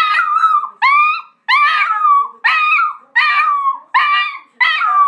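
Maltipoo dog giving a run of high-pitched, drawn-out calls, about seven in a row, each lasting about half a second and rising in pitch at its start.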